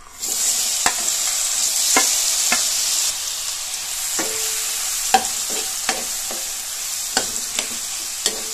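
Banana slices sizzling in hot ghee in a non-stick pan, stirred with a spatula that scrapes and knocks against the pan at irregular moments. The sizzle comes in loud as the fruit hits the ghee and eases slightly after about three seconds.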